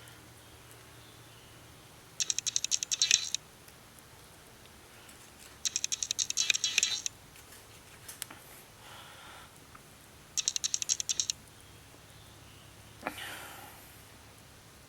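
Lid of a pot of water rattling in three short bursts of rapid clicking as the water comes to the boil.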